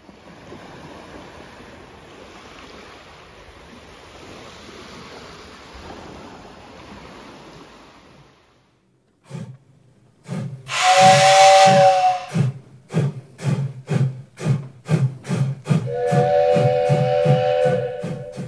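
Small waves washing onto a sandy beach. Then a steam locomotive chuffing at a steady beat of about two puffs a second. Over the chuffing come a loud two-note steam whistle blast about 11 seconds in and a three-note whistle near the end.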